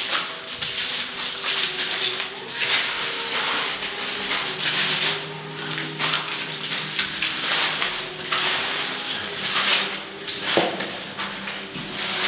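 Paper sticky notes rustling and crumpling in irregular handfuls as they are swept and gathered by hand across a tiled floor.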